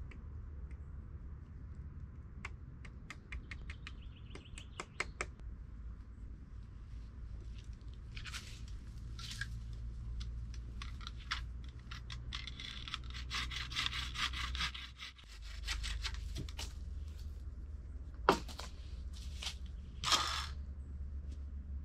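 Digging and scraping in dry earth and leaf litter with a long wooden pole. There is a run of quick ticks and crunches, then a longer stretch of scraping, and two sharper knocks near the end.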